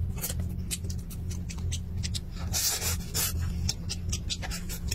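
Close-up eating sounds: chewing and wet mouth smacks as a man eats rice and sauced meat with chopsticks from a plastic bowl. Many short clicks, with a brief scraping rustle a little past halfway, over a steady low hum.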